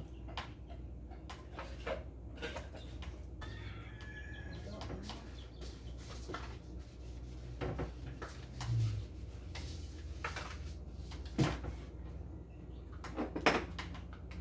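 Bottles, jars and spice containers being handled and set down on kitchen cupboard shelves: scattered knocks and clinks, with a dull thump about nine seconds in.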